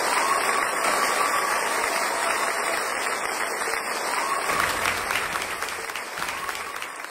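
Crowd applauding, a dense patter of many hands clapping that slowly fades out toward the end.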